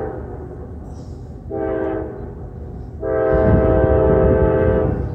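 Multi-tone air horn of an approaching diesel freight locomotive: the tail of one blast, then a short blast, then a long blast, the pattern used when a train nears a grade crossing. A low rumble rises under the long blast.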